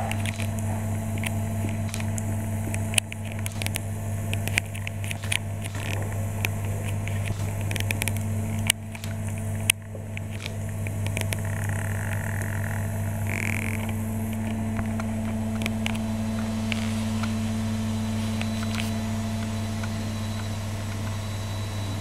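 Steady low electrical hum, like mains hum, with scattered clicks and knocks over the first ten seconds or so.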